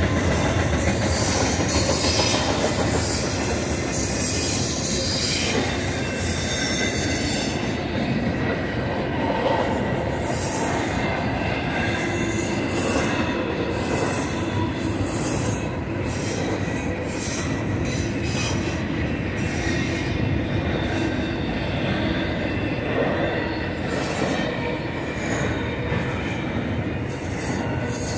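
Loaded double-stack container well cars of a freight train rolling past in a steady rumble of wheels on rail, with high-pitched wheel squeal that comes and goes.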